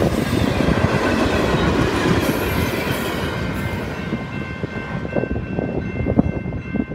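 Freight hopper cars rolling past close by, wheels clattering over the rail joints. About four seconds in, the sound drops to a level-crossing warning bell ringing steadily while the last cars clear the crossing, with scattered wheel knocks.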